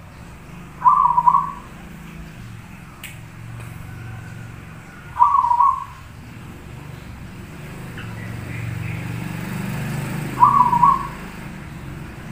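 Zebra dove (perkutut) cooing three times, about five seconds apart, each coo a short run of quick notes lasting well under a second. A low rumble runs underneath and swells in the second half, and there is one brief click about three seconds in.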